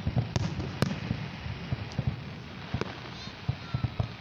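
Fireworks exploding: an irregular run of sharp bangs and pops over a steady low rumble of booms, the two sharpest cracks within the first second.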